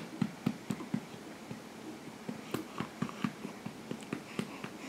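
A hand patting a baby's back to burp him: soft, quick pats about four a second, with a break of about a second after the first second.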